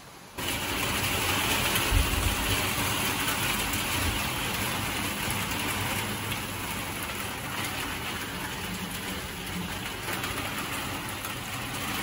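Heavy rain pouring onto a wet asphalt road, a steady hiss that begins abruptly just after the start, with a brief low rumble about two seconds in.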